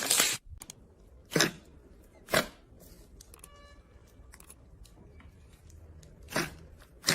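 Slime being squeezed and pressed by hand, giving a few short crackling squishes spaced a second or more apart, with quieter handling between them.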